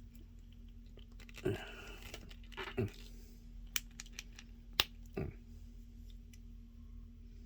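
Plastic action-figure parts being handled: a hand is worked off and onto its wrist peg. There are creaking pops about 1.5 s, 3 s and 5 s in, with sharp plastic clicks between them.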